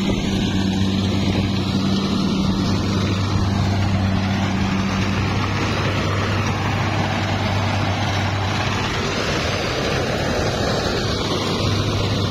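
Farm tractor engine running steadily at an even pace, a constant low hum over broad mechanical noise.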